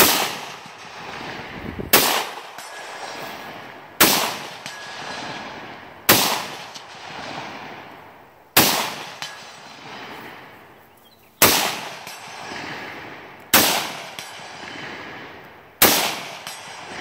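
Chinese Type 56 SKS semi-automatic rifle firing 7.62x39 rounds, eight shots spaced about two to three seconds apart, each followed by a long rolling echo.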